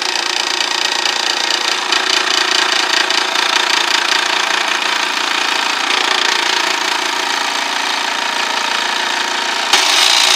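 Benchtop scroll saw running, its reciprocating blade cutting through a wooden board in a steady, loud buzz. The sound steps a little louder near the end.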